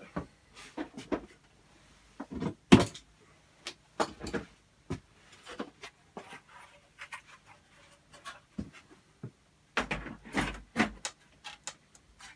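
Hard plastic parts being handled: irregular knocks, clicks and rubbing as the 3D-printed R2-D2 dome is worked on and fitted onto the body ring. The loudest is a sharp knock a little under 3 s in, and a cluster of louder knocks comes near the end as the dome goes on.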